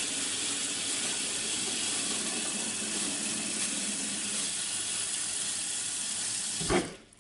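Kitchen tap running in a steady stream over wild leeks and into a stainless steel sink bowl as they are rinsed by hand. The water noise ends with a short knock near the end.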